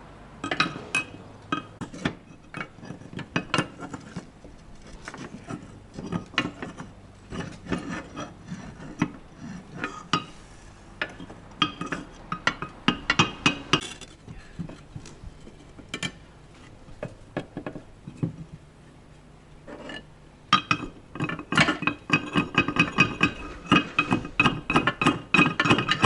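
Hard clinking and knocking: many sharp, ringing strikes in uneven runs, thinning out for a few seconds and then coming thick and fast near the end.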